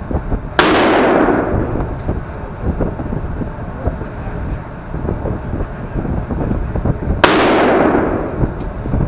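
Two rifle shots about six and a half seconds apart. Each is a sharp crack that overloads the recording and rings on in the echo of the indoor range for under a second, over a steady low rumble.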